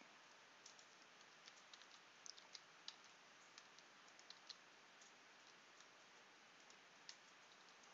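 Faint, scattered clicks of computer keyboard keys being tapped over a steady low hiss, in small clusters with pauses between.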